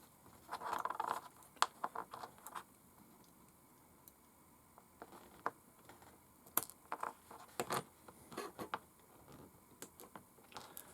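Irregular small clicks and taps, with brief rustling, from tweezers, pins and brass wheel weights being handled at a tiny RC crawler wheel. There is a pause of a couple of seconds in the middle.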